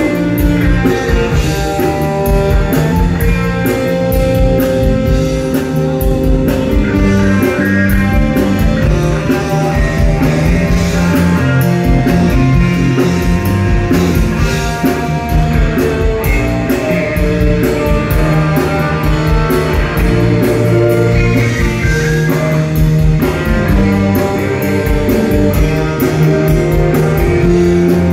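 Live rock band playing: electric guitar and electric bass guitar over a drum kit, loud and continuous.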